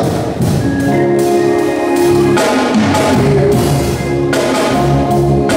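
Instrumental gospel music: held keyboard chords over a sustained bass line, with regular drum hits keeping the beat.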